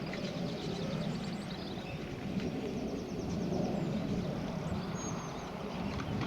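John Deere 6930 tractor's six-cylinder diesel engine running steadily under ploughing load. Small birds chirp in quick high runs about a second in and briefly again later.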